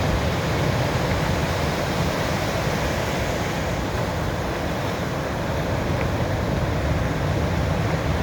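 Sea waves washing in on a beach: a steady wash of surf with a low rumble under it, no single break standing out.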